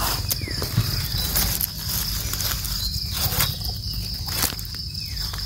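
Insects droning steadily on one high pitch, with rustling footsteps and brushing through dry forest undergrowth coming and going over it.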